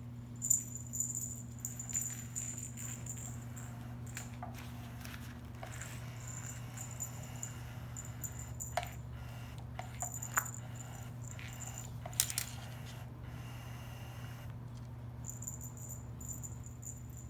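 Kittens playing, making scattered light clicks and rattles. Under them run a steady low hum and a high, pulsing chirp that drops out for a couple of seconds near the end.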